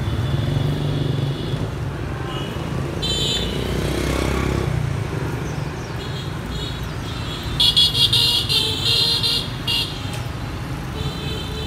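Street traffic running steadily, with vehicle horns beeping now and then and a loud choppy run of beeps about two-thirds of the way through.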